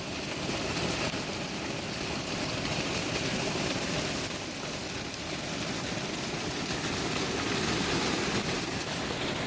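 Heavy hail falling: a steady, dense hiss of hailstones striking the ground and garden.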